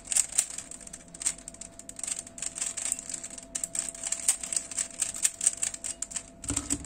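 Plastic stickerless 3x3 puzzle cube being turned by hand: quick, irregular clicking and clacking as its layers rotate.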